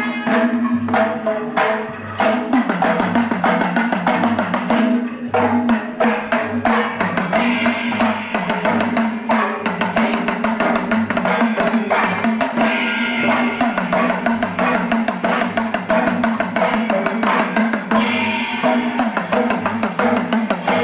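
Loud drumming with a regular low beat about twice a second and dense strokes, over a held pitched tone.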